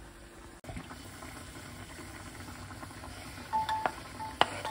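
Pot of water boiling on the stove for the pasta, a steady bubbling hiss. Near the end come two short electronic beeps, each with a click, like buttons pressed on an appliance.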